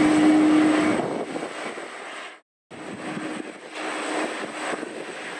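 Jet engines of a taxiing Airbus A330 airliner running at idle: a steady rushing noise with a held hum. The sound grows quieter after about a second and cuts out completely for an instant about halfway through before resuming.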